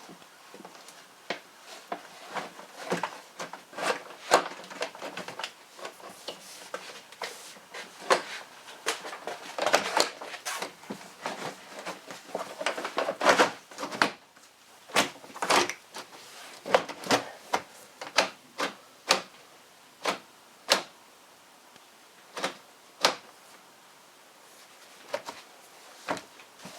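Irregular clicks, taps and knocks of pickup door-panel trim parts being handled and fitted back into place, busiest through the first half, then single sharp clicks about a second apart.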